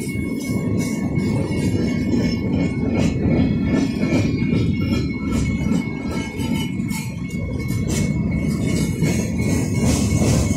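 Freight train cars rolling past at a grade crossing: a steady, loud rumble and clatter of wheels on rail. The crossing bell rings over it as a faint steady tone.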